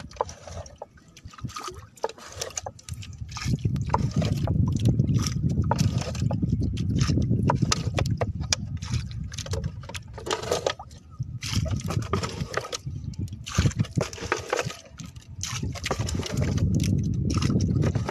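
Water splashing and sloshing against the hull of a small fishing boat under way, in irregular slaps over a steady low rumble.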